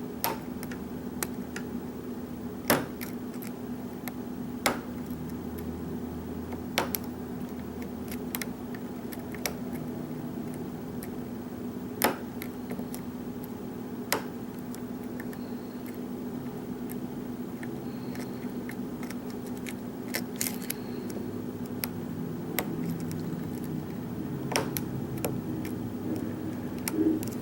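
Lock picking in a pin-tumbler lock: sharp, irregular metallic clicks and ticks as a hook pick and tension bar work the pins, the loudest about 3 and 12 seconds in, over a steady low hum.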